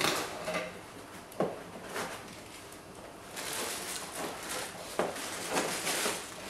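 Handling noise as a cable is coiled into a foam-lined cardboard box: a few short knocks and a stretch of rustling and scuffing of cardboard, foam and plastic.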